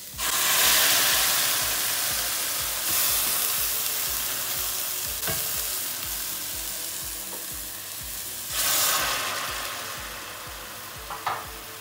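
Chopped onion in a little oil sizzling hard as chicken broth hits the hot pan to soften it. The hiss starts suddenly, surges again about three seconds in and near nine seconds, and dies down between, while a wooden spatula stirs the onion.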